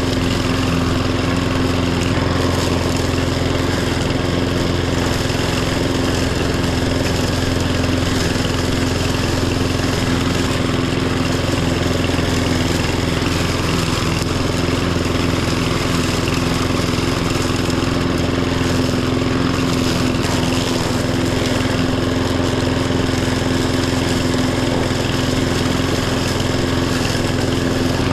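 Riding lawn tractor's engine running steadily at a constant speed, an even drone with no change in pitch or level.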